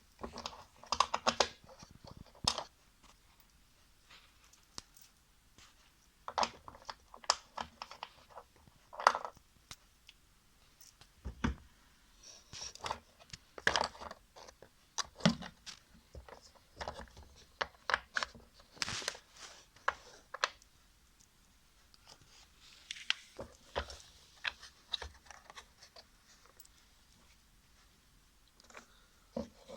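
Plastic parts and screws being handled and fitted by hand on a washing machine, most likely its belt cover going on. Scattered clicks, taps and short scrapes come in irregular clusters with brief pauses between them.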